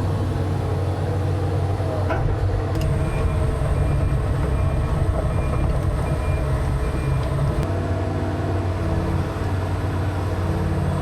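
Heavy diesel engine running steadily with a low drone. About three seconds in, a faint high beep repeats several times for a few seconds, and there are a few light clicks.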